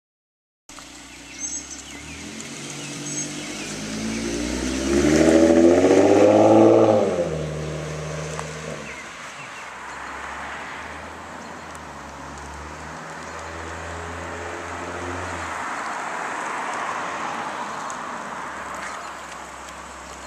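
2014 Ford Mustang's 3.7-litre V6 through a Roush axle-back exhaust, revving up hard as the car accelerates past, loudest about five to seven seconds in, then dropping back. It then runs at low revs, with a slower, gentler build in engine note later on.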